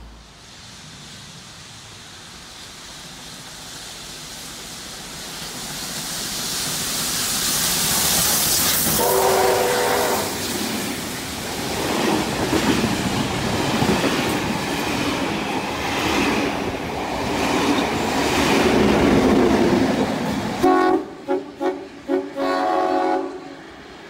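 Steam locomotive 3801's heritage train passing through a station at speed: a rising rush as it approaches, one short whistle blast about nine seconds in, then the carriages rumbling and clicking over the rail joints. Near the end, after a sudden drop, a train sounds several short toots.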